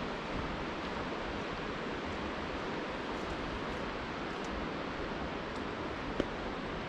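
Steady, even rushing noise of outdoor ambience, with one sharp click about six seconds in.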